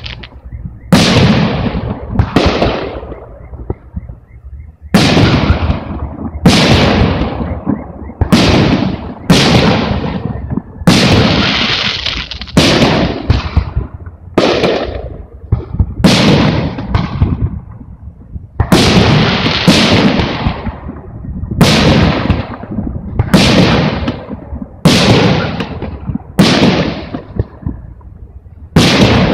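Aerial firework shells bursting one after another, about one sharp bang a second. Each bang fades off in a short tail, and there is a brief pause about three seconds in.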